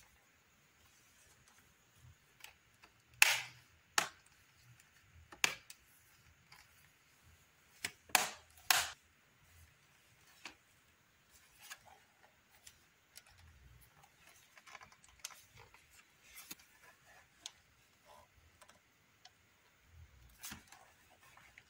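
Sharp plastic clicks and knocks, a handful louder than the rest with fainter ticks between, from the bottom casing of a Lenovo IdeaPad 320 laptop being handled and refitted.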